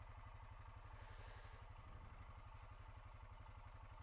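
Honda Foreman 520 ATV's single-cylinder engine running steadily, heard faintly as an even, low throb.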